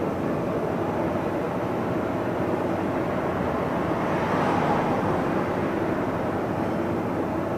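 Free-improvisation noise drone from amplified stringed instruments: a steady, dense wash of sound that swells briefly about halfway through.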